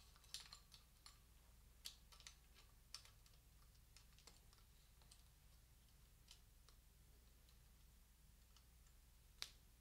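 Near silence over a low steady hum, with faint, scattered small clicks and ticks from hands working a bicycle brake cable through the brake lever on the handlebar; the sharpest click comes near the end.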